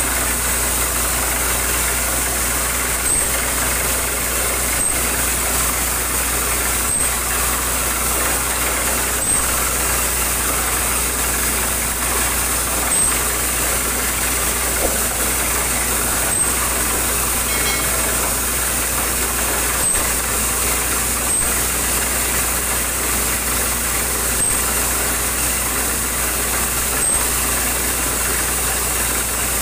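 Borewell drilling rig and its air compressor running steadily, with a sharp knock every two to three seconds.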